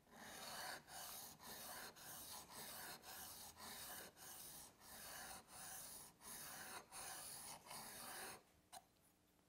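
Faint, steady scraping of a plane iron's bevel being honed on a water-lubricated diamond sharpening stone: even back-and-forth strokes, about two a second, that stop shortly before the end.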